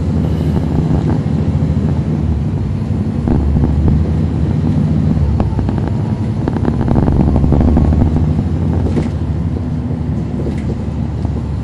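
Caterpillar C13 ACERT diesel engine of a 2009 NABI 40-SFW transit bus running under way, heard from the back seat near the rear engine. A run of short clicks and rattles comes about five to seven seconds in, and the engine grows louder around seven seconds in.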